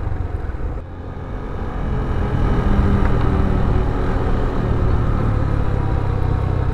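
Motorcycle under way on the road: engine running and wind rushing over an action camera's microphone. The sound dips briefly about a second in, then builds and holds steady.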